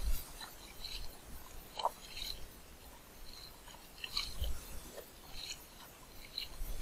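Hands splashing and rinsing in seawater over the side of a small boat: irregular small splashes and drips.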